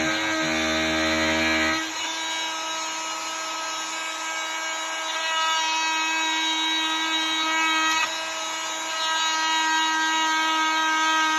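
Background music that stops about two seconds in. Then a Dremel oscillating multi-tool runs with a steady whine, growing louder for a few seconds at a time twice.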